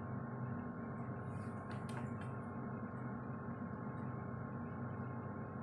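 Steady low hum with a thin steady tone above it, and a few faint light clicks about two seconds in.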